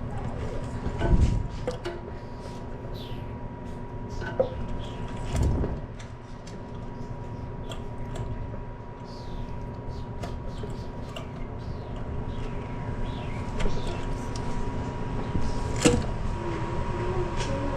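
Scattered clicks, taps and light knocks of toilet-tank parts being handled while a new flapper and its chain are fitted, with two dull thumps in the first six seconds. A steady hum runs underneath.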